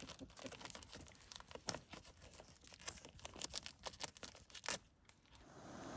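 Campfire crackling: irregular sharp pops and clicks of burning wood, with two louder pops. The crackling fades out near the end, giving way to a steady outdoor hiss.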